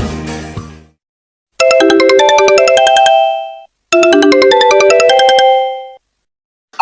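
A short polyphonic mobile-phone ringtone melody, played twice with a brief pause between. The end of a previous tune fades out in the first second.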